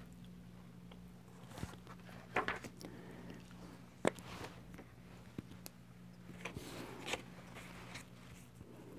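Faint rustling and soft taps of cardstock being handled and set down on a cutting mat, with a few sharper clicks about two and a half, four and seven seconds in, over a steady low hum.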